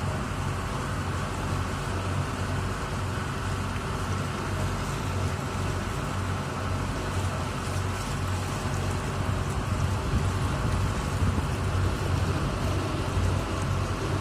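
Ferry's engine running steadily, a low hum under a continuous hiss of wash and wind.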